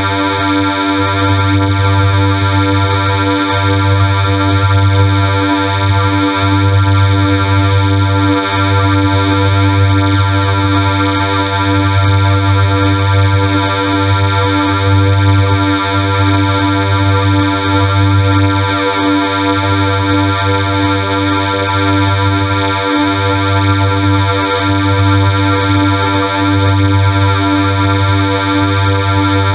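Loud, harsh synthesized sound effect: a dense chord of fixed pitches held over a heavy low hum, unchanging in pitch, with the low hum briefly dropping out every few seconds.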